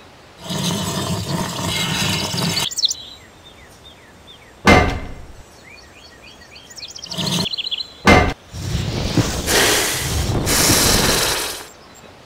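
Birds chirping in the background, broken by loud rushing noise about half a second in, two sharp knocks at about four and a half and eight seconds, and another long stretch of rushing noise near the end.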